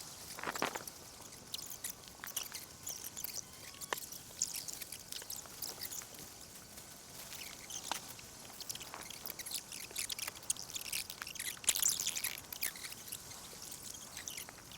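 Small birds chirping outdoors, mixed with scattered light clicks and rustles from a tent being pitched: poles, pegs and fabric being handled.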